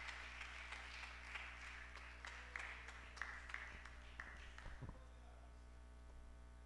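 Scattered audience applause in a hall, thinning out and dying away about five seconds in, leaving a steady electrical hum.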